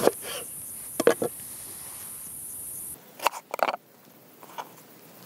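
Chef's knife cutting an eggplant into thick slices, the blade knocking on a wooden cutting board: one knock at the start and two about a second in, then a quick cluster of knocks and clatter a little past three seconds. A steady high hiss in the background cuts off suddenly about three seconds in.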